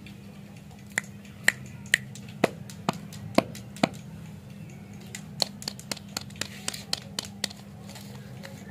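Sharp finger clicks: about seven spaced roughly half a second apart, then after a short pause a quicker run of about ten. A steady low hum sits underneath.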